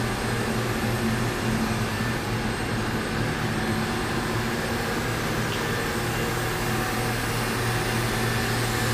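Steady machine-shop hum: a constant low electrical or motor drone with an even air-like hiss over it, with no starts or stops.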